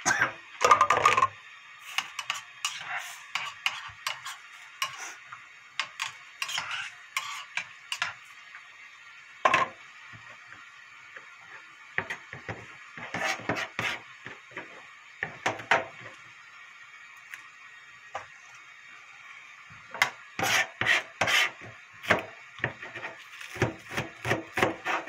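Chef's knife chopping green onion on a plastic cutting board: scattered knocks and taps. There is one sharp knock about ten seconds in, and runs of quick chops toward the end.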